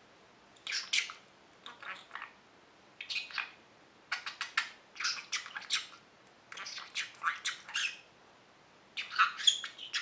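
Male budgerigar mimicking Russian speech in its high, scratchy chatter: "Кешунчик, мальчик!" ("Keshunchik, boy!") and "Ты мой хороший! Птичка!" ("You're my good one! Birdie!"). The phrases come in about seven short bursts with brief pauses between them.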